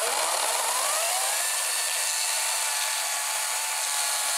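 Ego battery-powered chainsaw whining up to speed in about the first second and a half, then running steadily at a loud, even pitch while cutting wood.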